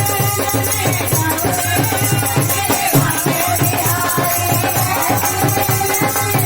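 Hindi devotional bhajan music: a fast, steady hand-drum beat with a shaker rattling along and a sustained melodic line over it.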